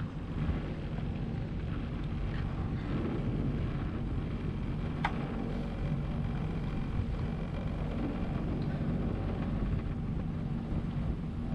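Sea-Doo Fish Pro personal watercraft's engine running steadily, under wind and water noise, with a single sharp click about five seconds in.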